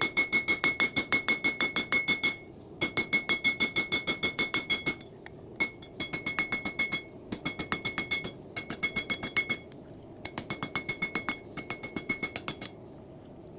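Hand hammer striking hot coil spring steel on an anvil in quick runs of blows, about six a second, with short pauses between runs, the anvil ringing at each blow. The steel is being drawn out to lengthen a knife's handle.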